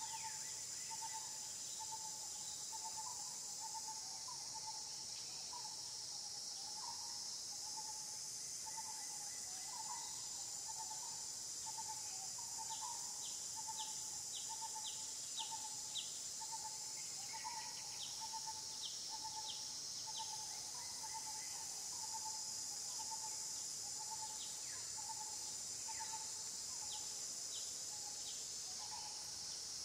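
Outdoor insect chorus: a steady, high-pitched drone throughout, with a short call repeating over and over at one pitch and scattered runs of quick ticks.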